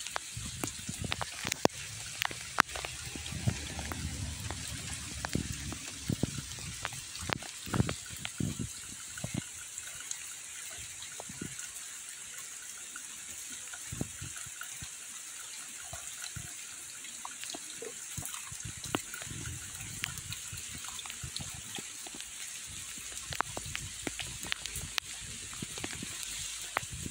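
Light drizzle falling steadily on garden leaves and paving, a continuous soft hiss with many scattered sharp ticks of drops landing close by.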